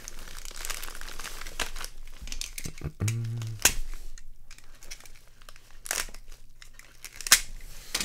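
A plastic poly mailer bag crinkling and tearing as it is pulled open by hand, with several sharp cracks; the loudest comes near the end.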